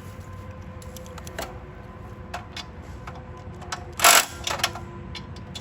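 Light metal clicks and taps of hand tools and bolts while chipper blades are fitted to the chipper/shredder, with one loud, sharp metallic clatter about four seconds in and a couple of smaller clinks right after it.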